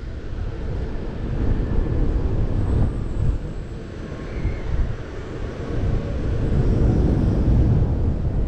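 Wind buffeting an action camera's microphone on a fairground ride that swings and flips its riders, a low rushing rumble that swells and eases as the ride swings round.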